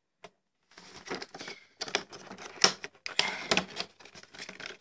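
Cardboard headphone box and its plastic packaging being opened by hand: a quick run of scraping, rustling and sharp clicks that starts about a second in.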